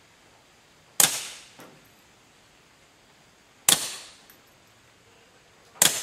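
Suppressed Walther P22 .22 LR pistol fired three times, a few seconds apart. Each sharp crack dies away over about half a second.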